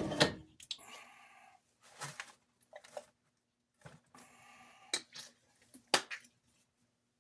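Light clicks and taps of small metal parts and tools being handled on a workbench, with short spells of scratchy rubbing, as the inside of a toy train motor is being cleaned.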